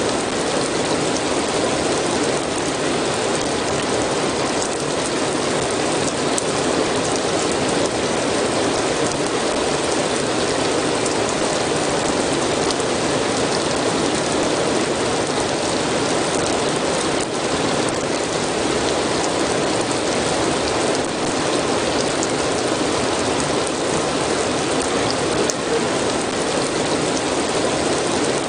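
Steady, dense rainfall: an even hiss of rain on surfaces with scattered drop ticks, unchanging throughout.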